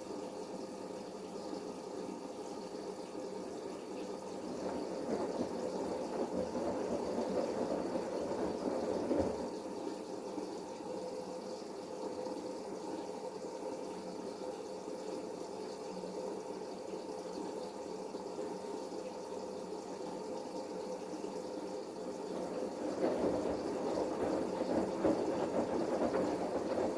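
Bosch Serie 8 front-loading washing machine in its main wash: water and laundry sloshing in the tumbling drum. It swells twice, from about four to nine seconds in and again near the end, with a quieter steady stretch between as the drum slows or pauses.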